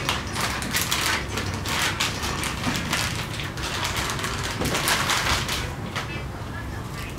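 Clear plastic packaging bags crinkling and rustling as they are handled and pulled open, a dense run of crackles that eases off near the end.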